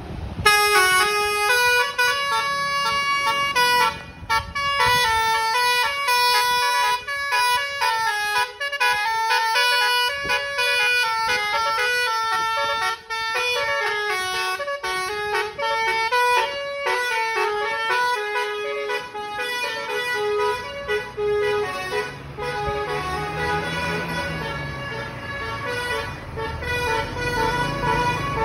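Basuri musical horn on the Tri Putra Jaya 'Azzalea' coach playing a long melodic tune, one note stepping to the next. About two-thirds of the way through, the bus's low engine rumble joins in under the tune.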